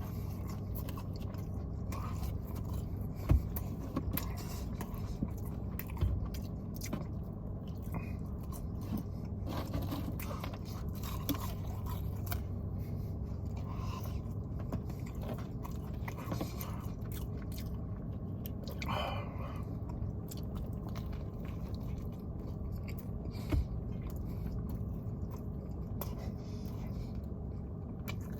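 Close-miked chewing and biting of fast food, with wet mouth sounds and scattered small clicks, a few of them sharper, over a steady low hum.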